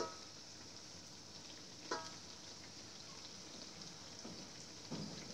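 Grated-cassava fritters frying in oil in a wok, a steady sizzle. A metal utensil clinks against the wok right at the start and again about two seconds in, and there is a duller knock near the end.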